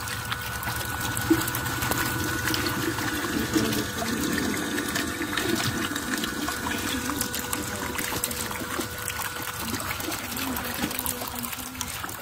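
Water trickling and splashing steadily, with a faint steady hum underneath.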